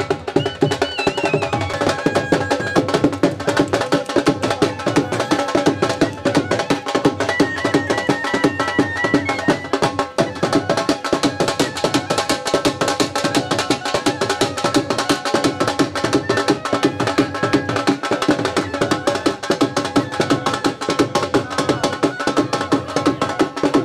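Drums played in a fast, driving rhythm of sharp, closely spaced strokes that goes on without a break.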